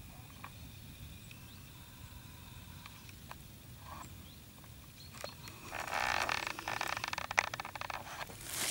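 Dry fallen leaves and dead grass rustling and crunching underfoot. It starts about two-thirds of the way in, after a quiet stretch, and comes again at the end.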